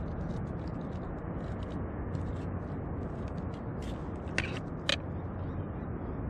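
Steady low roar of the sea swell, with a run of small clicks and scrapes from a knife filleting fish. Two sharper scrapes come about four and a half seconds in.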